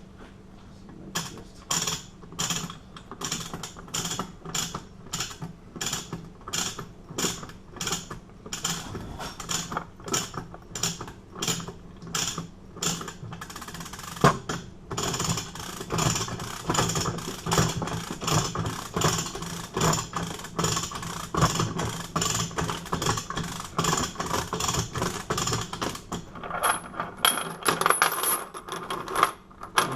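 A run of sharp metallic clicks, about two a second, that turns faster and busier about halfway through, over a steady low hum.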